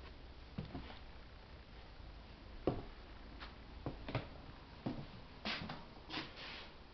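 Quiet room with a handful of faint, irregular knocks and clicks, more of them in the second half, from someone moving about over old oak floorboards.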